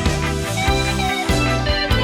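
Background music: a guitar-and-keyboard instrumental with a steady beat.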